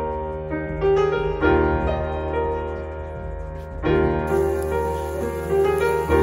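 Slow background piano music, with chords struck now and then and left to ring out.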